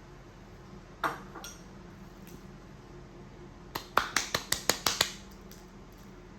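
Utensil clinking against a dish: a single knock, then a quick run of about seven taps, roughly six a second.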